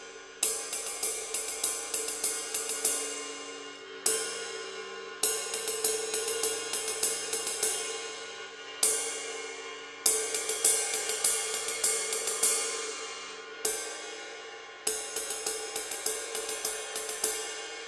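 Paiste 22-inch Masters Collection Crisp Ride cymbal played with four hickory Promark sticks in turn: acorn wood tip, oval wood tip, nylon tip and round wood tip. For each stick there is one single stroke left to ring, then a short run of ride strokes. The stick changes about every four and a half seconds, and the attack and shimmer of the cymbal change with the tip.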